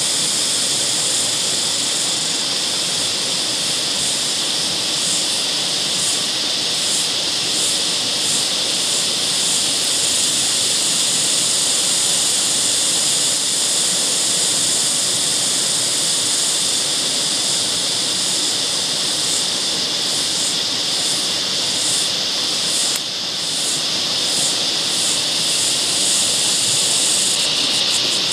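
Steady high-pitched hiss of the creekside bush, with a pulsing shimmer for stretches and a brief dip near the end.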